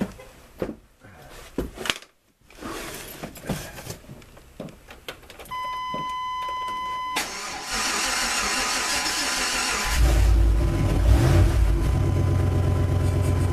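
In the cab of a 1995 Chevrolet Tahoe, a few clicks from handling, then a steady electronic warning beep for about a second and a half as the key turns. The starter cranks for a few seconds, and about ten seconds in the V8 catches and settles into a steady, loud idle. This is a cold start at about 15 degrees after the truck has sat unstarted for a while.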